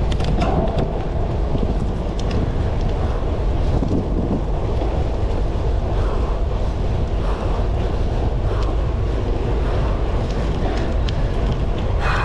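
Steady wind rush buffeting a GoPro action camera's microphone on a moving gravel bike, heavy in the low rumble, with a few faint ticks scattered through it.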